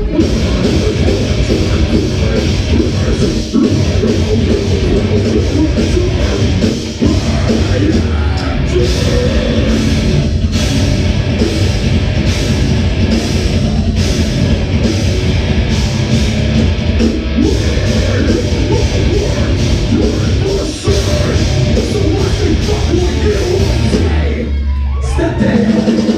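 Live rock band playing loud.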